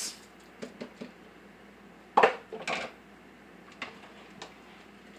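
A metal spoon knocking and clinking against the inside of a large cooking pot while soup is stirred. A few light clicks come first, then the loudest knock about two seconds in and another just after, with a couple of faint taps later.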